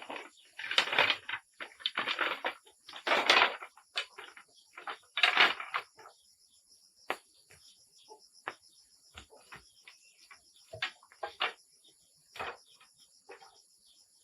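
A few short bursts of scraping or rustling in the first six seconds, then scattered light knocks and clicks, over a steady high-pitched buzz.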